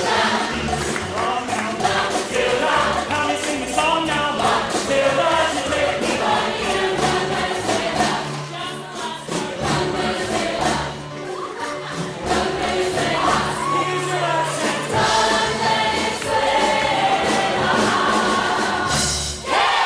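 A group of voices singing together in harmony over an instrumental accompaniment with a bass line.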